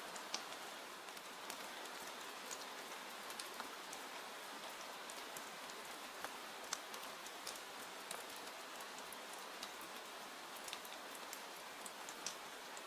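Steady rain falling on a surface, an even hiss dotted with scattered sharp ticks of individual drops.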